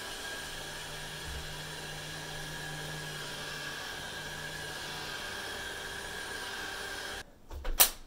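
iRobot Roomba 670 robot vacuum running: a steady whirring hum with a high whine on top. It cuts off abruptly about seven seconds in, followed by a single sharp knock.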